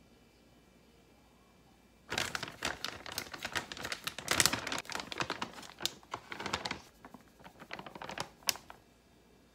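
A plastic packet of Korean pancake mix crinkling and crackling as it is handled, opened and tipped to pour powder onto a plate. The crinkling starts about two seconds in, comes in dense irregular bursts, and stops shortly before the end.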